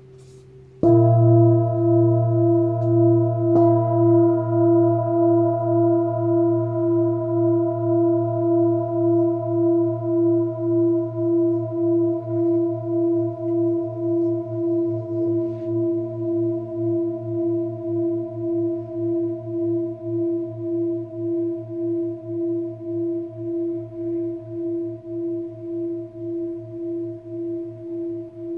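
Antique Tibetan singing bowl struck with a felt mallet about a second in, with a lighter second strike a few seconds later. It rings on in several steady tones with an even pulsing waver, fading slowly.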